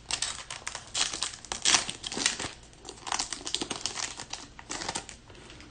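Trading card pack wrapper being torn open and crinkled by hand: a run of irregular crinkles and rips that dies away about five seconds in.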